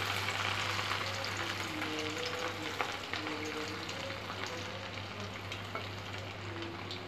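Egg-and-rice foam batter sizzling and crackling as it deep-fries in hot oil in a metal pan, with more foam being spooned on. The sizzle gradually gets quieter.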